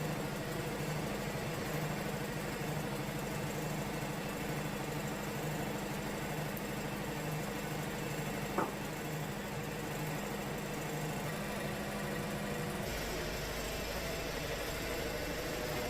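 Wood-Mizer portable sawmill's engine running steadily, with a single sharp click about halfway through; the engine note shifts about three seconds before the end.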